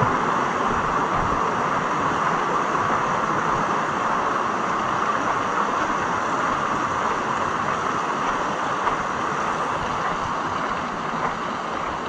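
Steady rush of a small waterfall and its stream splashing over rocks, an even hiss of falling water, a little quieter near the end.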